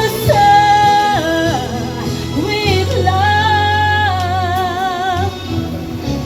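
A solo voice singing a slow ballad over an instrumental backing, holding long notes and ending phrases with a wide vibrato, with a steady bass underneath.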